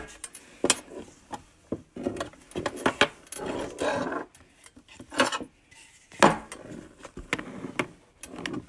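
Wooden rolling pin rolled back and forth over salt dough on a floured tabletop: repeated rubbing, scraping strokes with a few sharp knocks.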